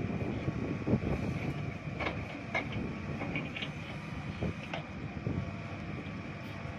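Case 770 FX backhoe loader's diesel engine running under working load as the backhoe arm dumps and digs soil, with a steady high whine over it and a few short sharp clinks from about two to five seconds in.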